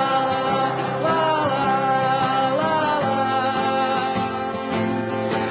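A man sings a wordless 'la la la' refrain to his own acoustic guitar accompaniment.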